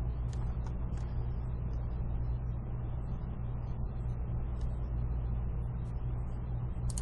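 Steady low hum with a background hiss, and a few faint clicks.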